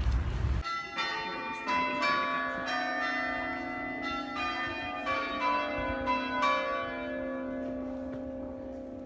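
Bells ringing: a run of overlapping pitched strikes on several notes, each ringing on, dying away toward the end.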